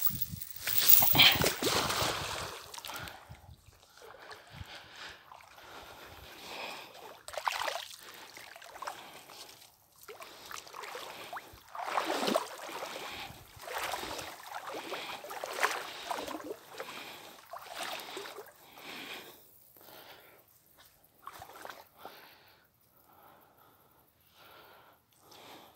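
Water splashing and sloshing in irregular bursts, loudest about a second in, then softer toward the end.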